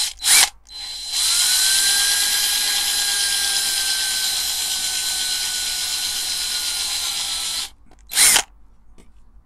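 Power drill drilling out the rivet of a diecast toy car's baseplate: two short bursts, then a steady run of about seven seconds with a high motor whine that falls slightly, and one last short burst near the end.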